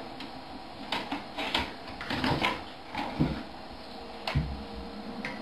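Scattered clinks and knocks of steel dog food bowls on a wooden floor as a group of dogs eat from them, about half a dozen irregular hits.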